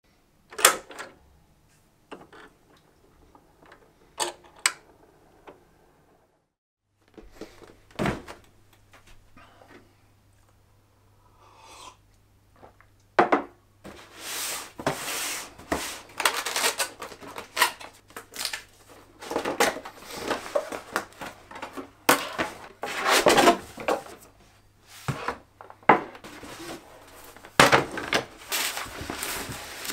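Cardboard speaker box handled and opened by hand: a few scattered knocks and taps at first, then from about halfway in, busy rubbing, scraping and knocking of cardboard flaps and packaging.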